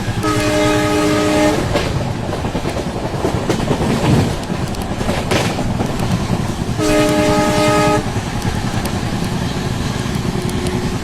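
WDP-4B diesel locomotive's horn sounding two blasts about five seconds apart, each a little over a second long, with several tones at once. Steady train running noise continues under and between the blasts.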